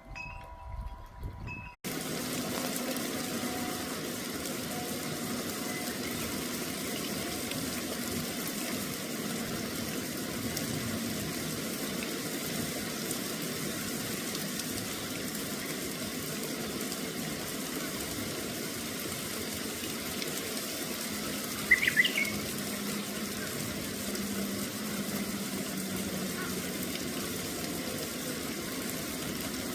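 Wind chime tones at the start, then an abrupt cut about two seconds in to a steady rush of flowing water. A brief, sharp high chirp about 22 seconds in stands out above the water.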